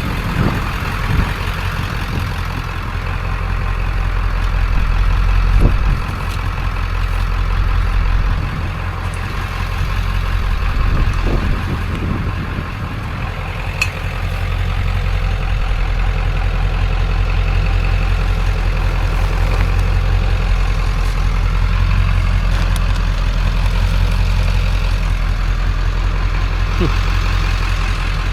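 A vehicle engine idling steadily with a low rumble, with a few faint knocks over it.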